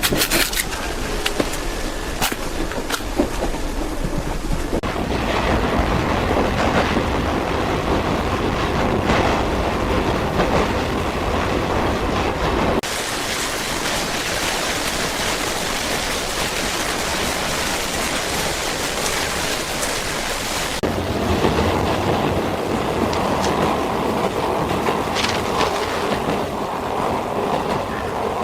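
Steady rushing ambience of wind and water noise, in sections that change abruptly in character about every eight seconds.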